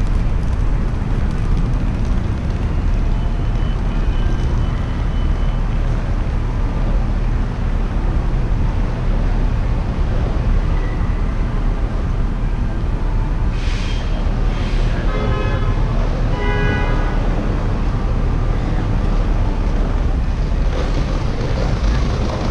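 Steady low rumble of city street traffic heard from a moving car, with two short hisses about two-thirds of the way in, then a vehicle horn sounding briefly twice.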